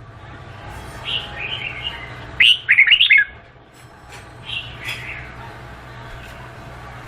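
Red-whiskered bulbul singing: three short phrases of quick, warbled whistled notes, the loudest about two and a half seconds in.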